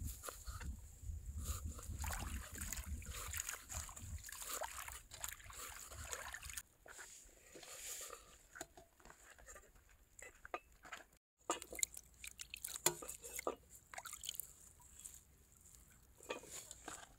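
Water sloshing and trickling amid irregular small knocks and clicks of food being handled, with a low rumble in the first few seconds and a brief dropout about two-thirds of the way through.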